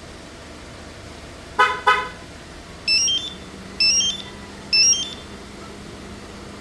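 Two short vehicle horn toots from a remote-start car alarm. They are followed by three high electronic chirp melodies about a second apart, the alarm system confirming a remote command.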